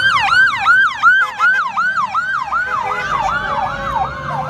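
Fire truck's electronic siren on a fast yelp, rising and falling about three times a second, growing a little fainter as the truck moves away.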